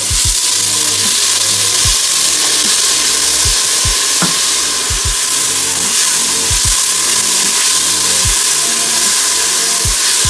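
Chopped shallots and freshly added garlic sizzling in hot oil in a stainless steel pot. It is a loud, steady hiss that swells as the garlic goes in.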